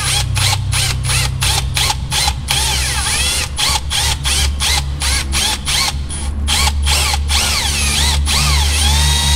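Cordless drill with a regular twist bit boring a pilot hole through the plastic grille, the motor speed rising and falling as the trigger is worked, the sound stuttering with many short breaks.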